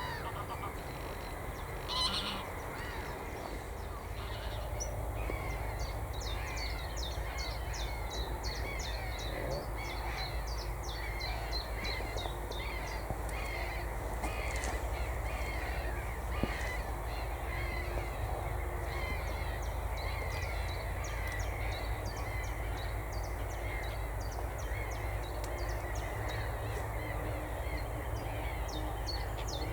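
Many birds calling at once in a continuous chorus of short, overlapping calls, over a steady low rumble.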